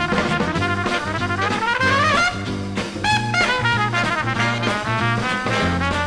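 Big band swing recording from a 1960s LP: a brass section of trumpets and trombones over bass and drums. A brass line climbs in pitch over the first two seconds, and a new phrase comes in about three seconds in.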